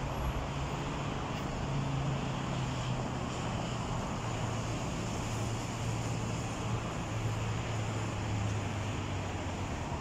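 Steady city traffic noise: a low engine drone under an even hiss of road noise.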